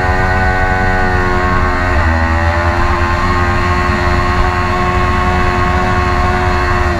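Kawasaki Ninja 400 parallel-twin engine running at high revs through a long corner, heard from onboard the bike, with a brief dip in pitch about two seconds in before the note holds steady again; wind noise underneath.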